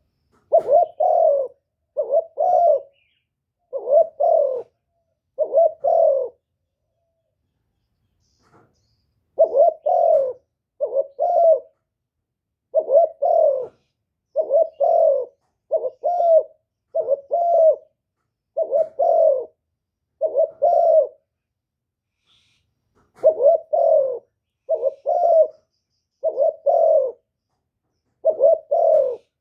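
Spotted dove cooing: repeated phrases of deep coos, mostly in close pairs, broken by two short pauses. It is a decoy-bird call used to provoke wild spotted doves.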